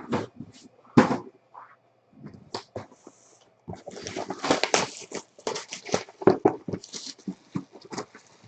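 Crinkling and rustling of trading card packs being torn open, with the cards being handled: irregular quick clicks and crackles, busiest in the second half.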